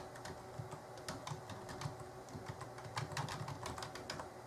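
Typing on a computer keyboard: an irregular run of quick keystroke clicks.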